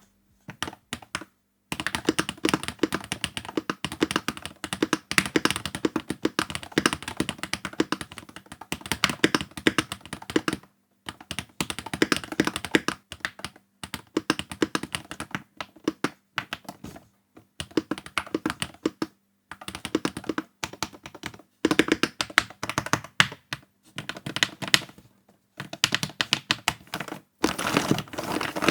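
Typing on a Moeetech GLITTER65 HE Hall Effect keyboard with beige Pro G magnetic switches: fast runs of keystrokes lasting a few seconds each, with short pauses between them.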